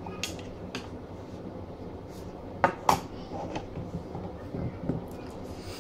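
Hard plastic Play-Doh volcano playset pieces being handled and set down on a table, making short clicks and knocks. The two loudest knocks come close together about two and a half seconds in, with lighter taps before and after.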